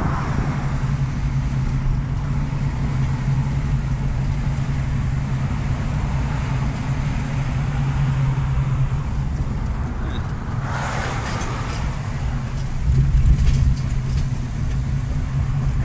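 Steady low drone of a car's engine and tyres heard from inside the cabin while driving, with a brief burst of hiss about 11 seconds in and a swell in loudness about 13 seconds in.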